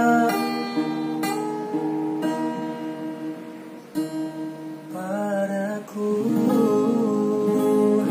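An acoustic guitar strums and rings out chords under male singing. The music dies down to a soft, sparse moment about four seconds in. The singing comes back about a second later, and the guitar strums in fuller again near the six-second mark.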